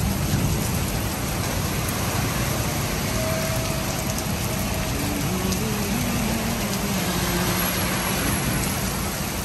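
Heavy rain pouring down with big drops, a steady even hiss, with a faint low hum under it in the middle.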